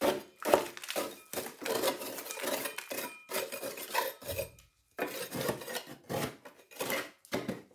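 Scraping and rubbing as caked mud and grass clippings are dug out from inside a lawn mower's deck by a gloved hand, in a run of irregular strokes with a short pause a little past halfway.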